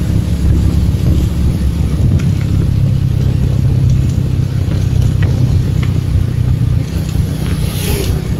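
Steady low rumble of a road vehicle travelling along a highway: engine and road noise, with a hiss building near the end.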